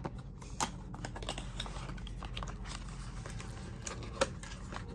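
Fingers opening a small paperboard product box: irregular light clicks, taps and scrapes as the flaps are worked open, with a couple of sharper taps.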